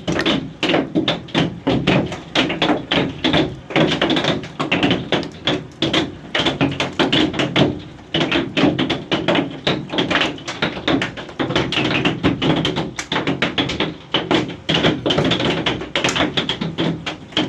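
Hailstones pelting hard surfaces: a loud, dense and irregular clatter of impacts, many each second.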